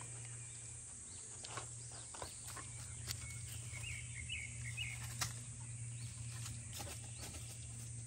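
Quiet forest ambience under a steady low hum, with scattered small clicks and a brief series of bird chirps about four seconds in.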